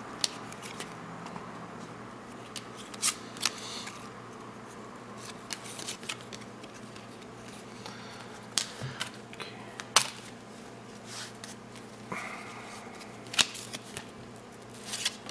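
Cardboard basketball trading cards handled and flipped one by one: soft sliding swishes of card on card with irregular sharp flicks and snaps as each card is pulled from the stack.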